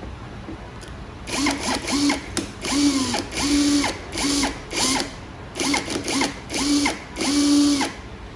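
Cordless 18V drill (a Makita-battery-compatible clone) run in about a dozen short trigger pulls: the motor whirs up, holds briefly and winds down each time, with the last run the longest.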